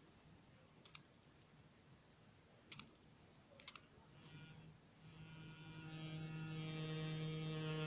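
A few sharp clicks, single and in quick pairs and threes, then a steady electric hum with many overtones that sets in about four and a half seconds in and grows louder: the camera gimbal's motors powered up and holding the camera.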